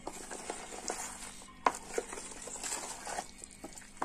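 A bare hand mixing chopped raw mango pieces with spice masala in a plastic tub: an irregular run of soft clicks and rustles as the coated pieces are turned over, with a couple of sharper knocks near the middle.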